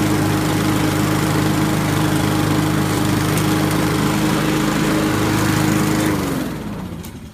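Honda walk-behind lawn mower's single-cylinder engine running steadily under the mower deck. About six seconds in it is shut off, and its pitch falls as it winds down to a stop.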